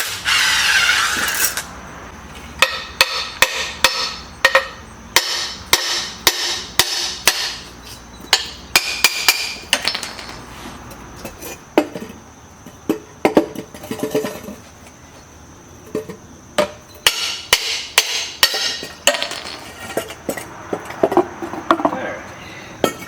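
Hand tools on a removed turbocharger as the old 6.0L Powerstroke VGT turbo is taken apart: many irregular sharp metal taps, knocks and clinks. There is a short hiss in the first second or so.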